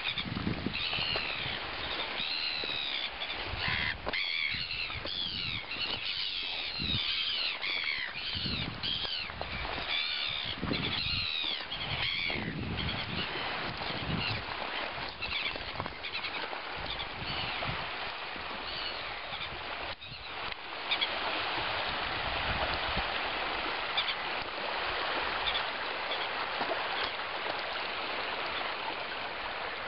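A flock of birds calling, many short high calls repeated over and over, which thin out after about twelve seconds. About two-thirds of the way in, a steady rush of shallow water flowing over a pebble and shell bar takes over.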